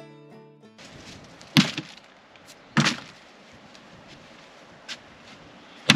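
Banjo music stops just under a second in, then worn running shoes are dropped into an empty plastic wheelie bin with two loud thuds about a second apart, a small knock, and another loud knock at the very end.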